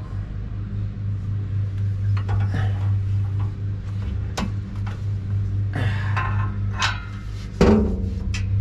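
Metal hand tools knocking and clinking against the exhaust clamp hardware: a handful of sharp, irregular metallic knocks, the loudest near the end with a short ring. A steady low hum runs underneath.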